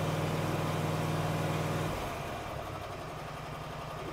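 Kohler Courage SV725 24 hp V-twin engine on a lawn tractor running on its first start after a head gasket replacement, loud enough to overload the microphone. About two seconds in its note drops and it settles to a quieter, lower running speed.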